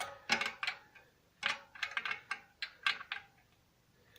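Irregular metallic clicks and ticks of a spoke key turning the spoke nipples on an e-bike's rear wheel, about ten in a row, as each spoke is given an eighth to a quarter turn to check its tension.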